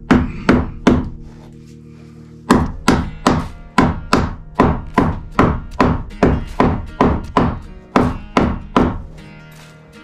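Hammer blows driving nails into wood framing: a few quick strikes, a short pause about a second in, then a steady run of about three blows a second that stops near the end.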